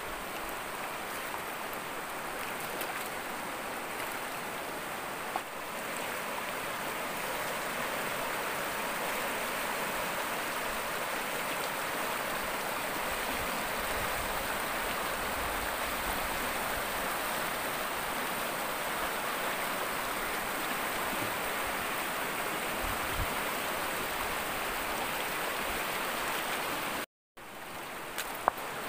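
Fast-flowing river rushing over rapids: a steady, even roar of churning water, broken by a brief silent gap near the end.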